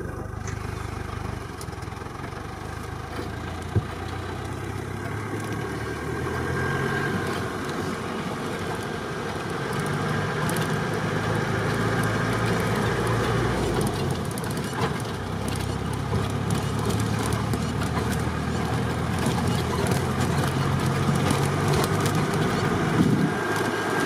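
Safari vehicle's engine running as it drives, the engine note shifting up and down a few times.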